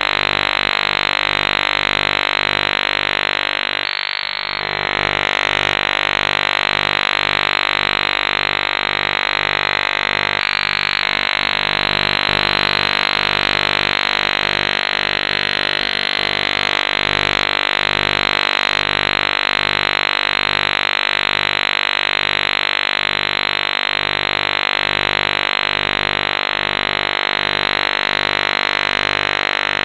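Continuous fuzzy electronic drone sampled from radio: a loud, even hiss-like buzz layered over many steady humming tones, with a muffled, radio-like sound. It wavers briefly about four seconds in and again about eleven seconds in.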